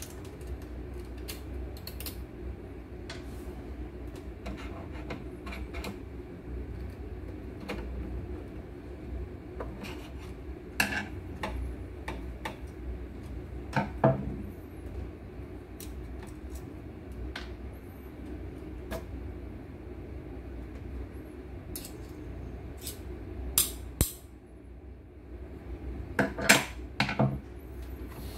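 Scattered clicks and knocks of metal and plastic parts as the lower bed unit of a dismantled embroidery machine, with its rotary hook assembly, is handled and fitted into place. A few sharper knocks come midway and a cluster near the end, over a steady low hum.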